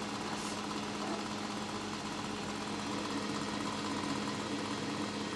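Steady low hum of the cooling fan on a homemade infrared BGA rework station, running while the heaters bring a circuit board up to solder-melting temperature.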